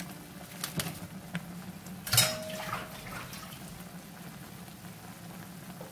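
Ramyeon noodle broth at a rolling boil in a pot, bubbling steadily with two eggs in it. A sharp clink with a brief ring sounds about two seconds in, and a few lighter clicks come earlier.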